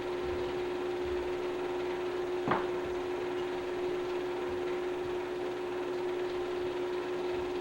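A steady machine hum, one constant tone over an even hiss, with a single short click about two and a half seconds in.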